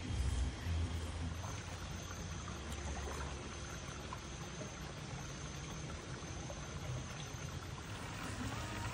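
Steady trickling and running water from a swimming pool, with a brief low rumble in the first second.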